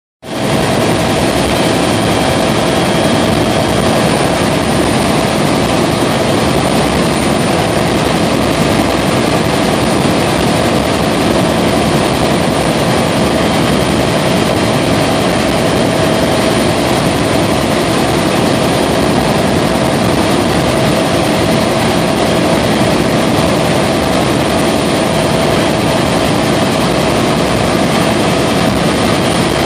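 Helicopter in flight heard from inside the cabin: a loud, steady roar of rotor, turbine and airflow with steady whining tones on top.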